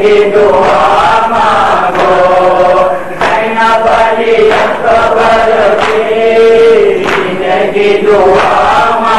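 Men's voices chanting a noha, an Urdu Shia mourning lament, in drawn-out wavering lines. Sharp strokes recur about once a second, typical of chest-beating (matam) keeping time.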